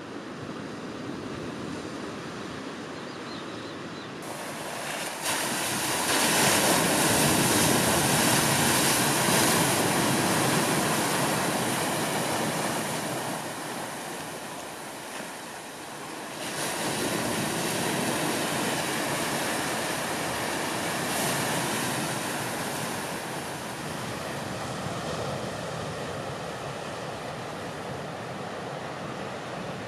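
Ocean surf breaking on a rocky shore and washing over the stones: a steady rushing that swells louder about six seconds in, eases, then surges again a little past halfway.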